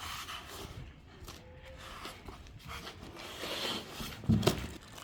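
Packaging being handled and opened: faint rustling and small knocks, with a louder thump a little after four seconds in.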